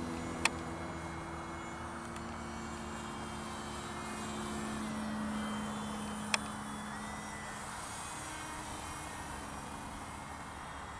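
RC parkjet model airplane's electric motor and propeller running in flight overhead: a steady drone that shifts down in pitch around the middle. Two sharp clicks, about half a second in and about six seconds in.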